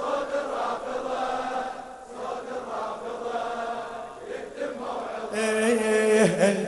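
Male voices chanting together in a Shia latmiya mourning chant, on long held notes, swelling louder near the end.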